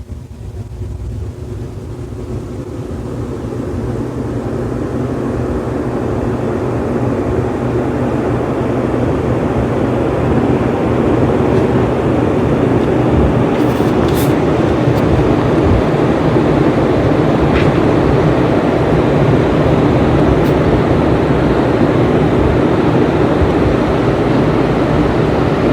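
Hampton Bay Glendale ceiling fan speeding up on its upgraded capacitor: a rush of air from the blades under a low motor hum, growing louder over the first ten seconds or so, then holding steady at full speed. With the blades set to a 13° pitch it runs a little noisier.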